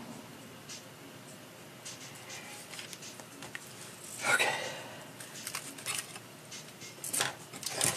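Handling a small RC rock crawler and a screwdriver on the bench: light clicks and taps of plastic and metal parts. There is a louder rustling clatter about four seconds in, and a run of small clicks after it.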